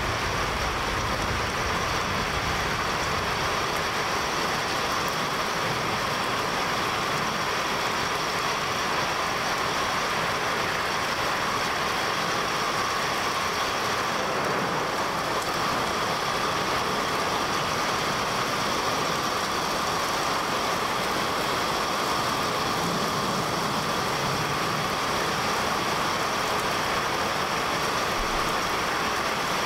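A steady, even rushing noise with no beat or tune, unchanging throughout.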